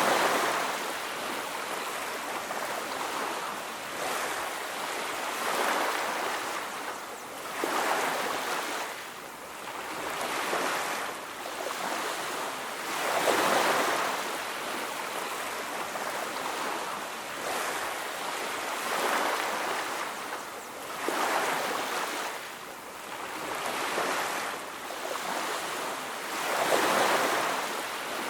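Sea waves breaking and washing up on a beach, the surf swelling and ebbing every few seconds.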